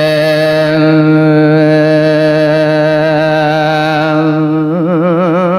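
A Buddhist monk singing one long held note in the Isan thet lae sung-sermon style. Near the end the note breaks into a fast wavering ornament, then holds steady again.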